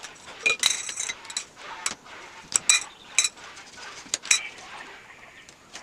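A string of sharp clinks and taps at irregular intervals, some with a brief ring: parts of a portable shelf rack knocking together as they are handled.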